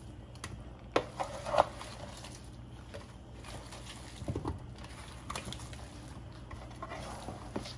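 A utensil stirring shrimp, corn and potato pieces in a large stainless steel pan: soft wet shuffling with a few sharp knocks and scrapes against the metal, the loudest near the start and again about halfway through.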